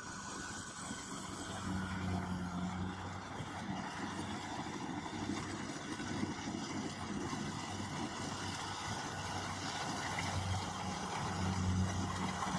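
Kubota combine harvester running as it cuts rice, a steady engine hum that grows louder as the machine comes closer.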